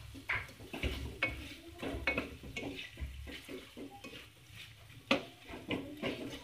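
A spatula stirring and tossing sliced onions and green capsicum in a black kadai, with irregular scrapes and clicks of the spatula against the pan over a light sizzle of frying. The sharpest click comes about five seconds in.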